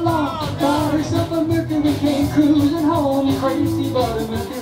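Live band music: electric guitar and upright bass with a steady beat, and a man singing.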